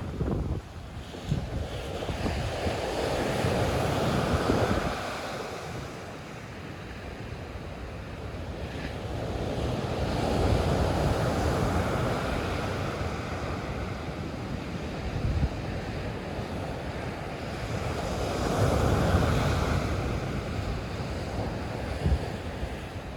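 Sea waves breaking and washing up the shore, swelling and fading three times about seven seconds apart, with wind buffeting the microphone.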